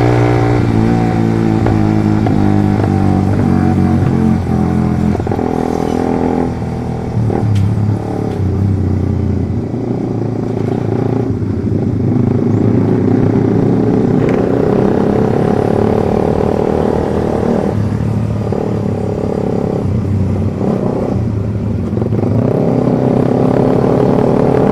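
Suzuki GSX 150 sport bike's single-cylinder engine through a Pro Liner short aftermarket exhaust, heard from the rider's seat: the engine note falls as the bike slows, then rises and drops in short bursts of throttle at low speed.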